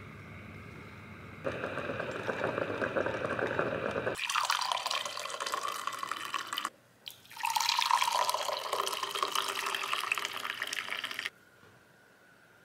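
Ninja drip coffee maker brewing, then hot coffee poured from its carafe into ceramic mugs in two pours, each starting and stopping abruptly.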